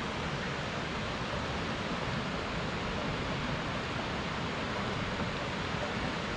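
Steady, even rush of a large waterfall, a hiss of falling water with no breaks or separate splashes.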